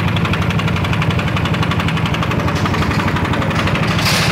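Yamaha NMAX scooter's single-cylinder engine idling steadily with a rough, unusual knocking noise, the sign of a worn piston and cylinder bore that need replacing. A brief hiss sounds near the end.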